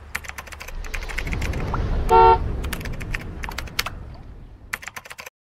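A rapid, irregular run of sharp clicks over a low rumble that swells and fades, with one short horn toot about two seconds in as the loudest sound. Everything cuts off abruptly near the end.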